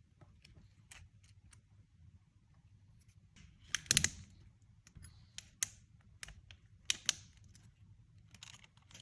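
Scattered small clicks and taps of repair tools handling a smartphone, the loudest a short run of clicks about four seconds in, with single clicks after it.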